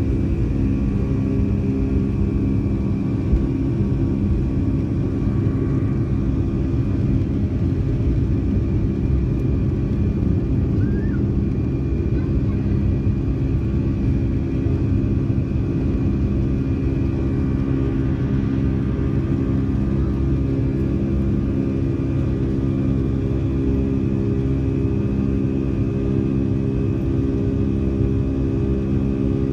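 Boeing 757-200's Pratt & Whitney PW2000-series turbofans at takeoff thrust, heard from a cabin seat over the wing: a steady, loud drone with a deep hum and several steady tones as the jet lifts off and climbs.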